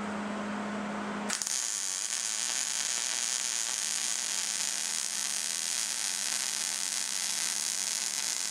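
Wire-feed (MIG) welding arc on steel: a steady low hum, then the arc strikes a little over a second in and runs with a loud, even hiss.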